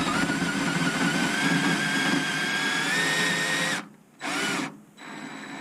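Power drill drilling out the head of a security screw in a microwave's sheet-metal casing: a steady motor whine creeping up in pitch, stopping just before four seconds in, then a short second burst.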